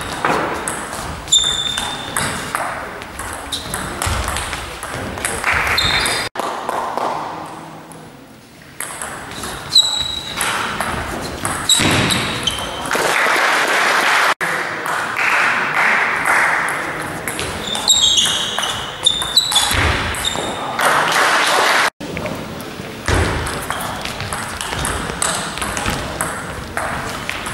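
Table tennis rallies: the ball clicking off bats and table in quick exchanges, with voices between points. The sound breaks off abruptly three times where one rally is cut to the next.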